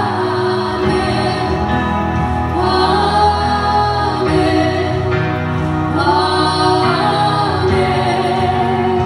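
Two women singing a worship song through microphones, with long held, gliding notes over a steady low instrumental backing.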